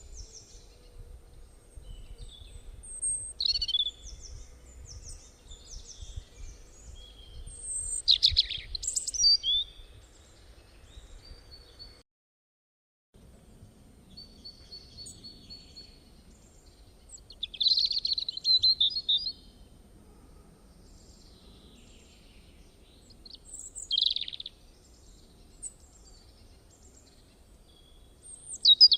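Birds chirping and calling in short bursts over a faint low background rumble, with the sound cutting out completely for about a second near the middle.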